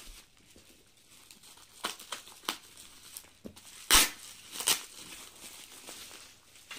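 Clear plastic wrapping crinkling and tearing as it is pulled open by hand, in a few sharp rustles, the loudest about four seconds in.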